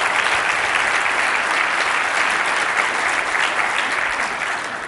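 Conference audience applauding steadily, fading off at the end.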